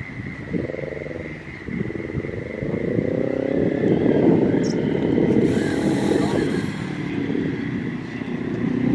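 A motor vehicle engine passing, its pitch rising and falling as it accelerates, with a brief hiss partway through.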